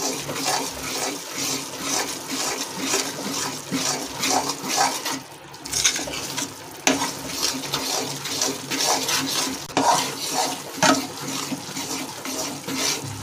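Metal spatula stirring and scraping thick besan roasting in ghee against an aluminium pan, in quick repeated strokes.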